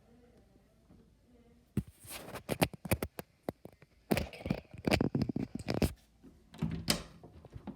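Irregular clicks, knocks and scraping handling noises, starting about two seconds in and stopping about a second before the end.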